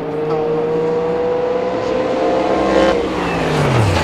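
Sauber-Mercedes C11's 5.0-litre twin-turbo V8 race engine pulling under acceleration, its note climbing slowly, then dropping sharply in pitch about three seconds in.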